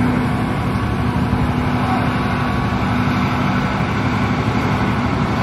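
Sand transport ship's engine and conveyor machinery running, a loud, steady mechanical noise with a constant low drone.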